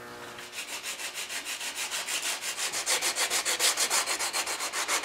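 Hand sanding with sandpaper wrapped on a wooden block, rubbed quickly back and forth over a stretcher end, about eight or nine strokes a second, starting about half a second in. The sanding levels a newly added piece of wood flush with the old veneer.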